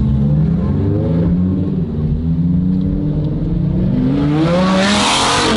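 Car engine accelerating hard, its pitch climbing and then dropping back several times as it shifts up through the gears, with a loud rushing noise building near the end.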